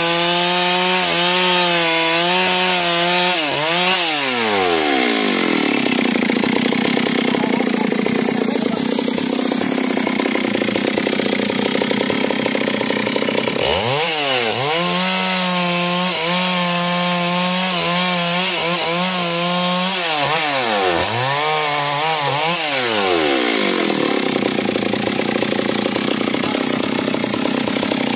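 Stihl two-stroke chainsaw cutting a felled manglid trunk and branches, held at full throttle and then falling back to idle about four seconds in. About halfway through it revs up again for a cut of about six seconds, eases off briefly, revs for another short cut, and drops back to idle near the end.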